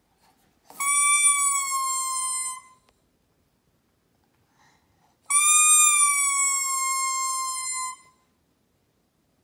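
A baby blowing a yellow plastic toy trumpet: two long single-pitch toots of about two seconds each, a few seconds apart, each sagging slightly in pitch toward its end.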